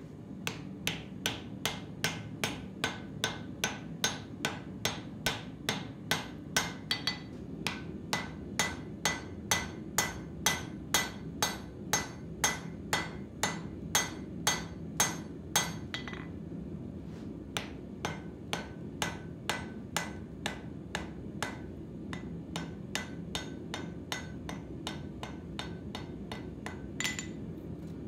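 Hand hammer striking a red-hot steel axe blank on an anvil in a steady rhythm of about two to three blows a second, each blow ringing. About halfway through the blows turn lighter, with one harder blow near the end, over a steady low rumble.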